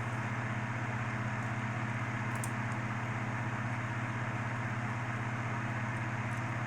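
Steady low background hum with hiss, like a room fan or air conditioner running, with one faint click about two and a half seconds in.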